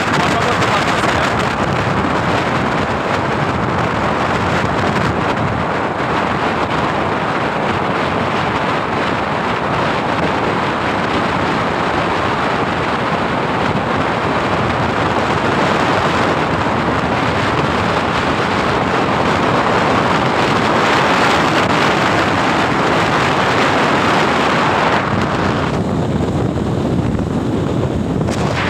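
Strong wind rushing over the microphone on top of a vehicle moving at road speed, with the vehicle's running noise underneath. The rushing thins out for a couple of seconds near the end.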